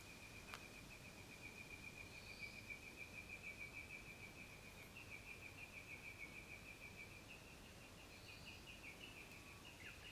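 Faint, steady trill of an insect, a fast pulsing on one high pitch that never stops, with a few brief higher chirps now and then.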